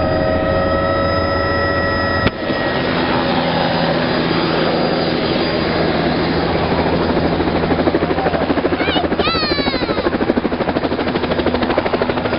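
Helicopter running, a continuous engine and rotor noise; a sharp click about two seconds in where the steady whining tones drop out, after which the rotor's regular beating grows stronger in the second half. A brief high gliding sound about nine seconds in.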